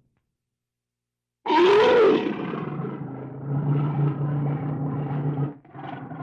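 After about a second and a half of silence, a large animal's loud roaring call starts suddenly, rising then falling in pitch, and runs on into a lower, drawn-out call.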